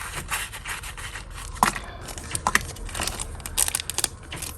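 Small plastic packets crinkling and rustling as jewellery is handled, with sharp clicks and taps. Two clearer clicks come about a third and halfway through, and the crackling thickens near the end.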